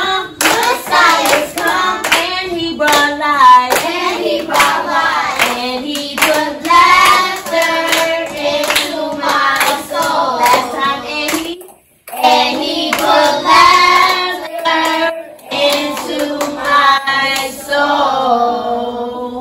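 A group of children singing a song together while clapping their hands in rhythm. The sound drops out briefly about twelve seconds in, then the singing and clapping resume.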